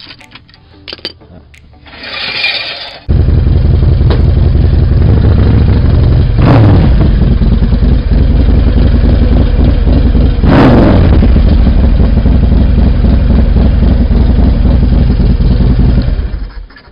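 A Harley-Davidson touring motorcycle's V-twin engine is cranked and catches about three seconds in, then idles loudly with two quick throttle blips, each rising and falling in pitch. It cuts off suddenly near the end.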